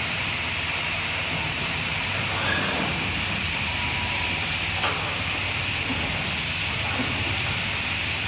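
Steady running noise of a window-frame welding and corner-cleaning line, a low hum under an even hiss, with a couple of faint clicks about two and a half and five seconds in.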